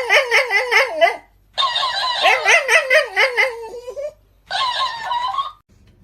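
High-pitched giggling laughter in three bursts, each a quick run of short rising-and-falling notes, with brief pauses between.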